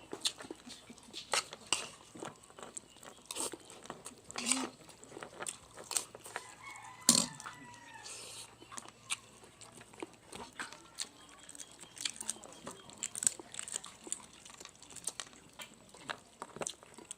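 Close-up chewing and crunching on leftover roast chicken bones: irregular wet clicks and crunches throughout. About seven seconds in, a loud sharp click comes together with a brief pitched call.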